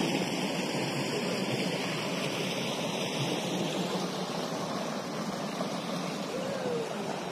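Steady rush of falling water at a waterfall.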